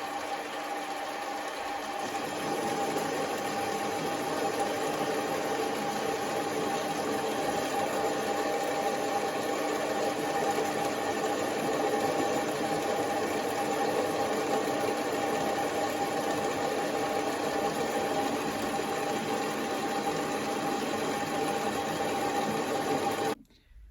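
Mini lathe running while turning a round steel bar down to 6 mm diameter: a steady motor and gear whine with cutting noise. It stops about half a second before the end.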